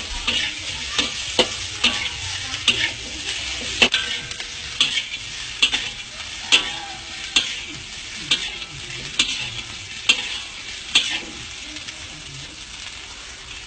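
Fried rice sizzling in a hot wok while a spatula scrapes and tosses it in regular strokes, about two a second at first and then about one a second. The strokes stop near the end, leaving only the frying hiss.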